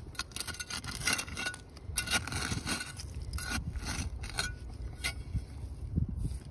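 A series of short, sharp scrapes of a digging tool working through dump soil and debris, about eight in all, as a buried bottle is dug free.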